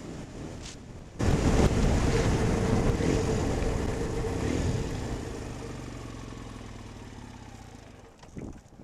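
A motor vehicle's engine comes in suddenly and loudly about a second in, then fades away gradually over several seconds, with wind on the microphone.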